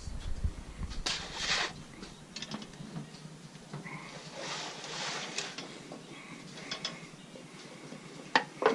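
Heavy steel lid of a Lone Star Grillz offset smoker's cooking chamber being lifted open, with metal clanks and scrapes. Two sharp metallic clicks come near the end.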